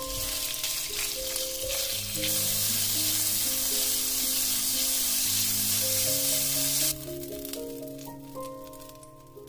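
Shrimp frying in hot oil in a cast-iron pan while being stirred with a spatula: a steady sizzle that grows louder about two seconds in and cuts off abruptly about seven seconds in, followed by a few light clicks.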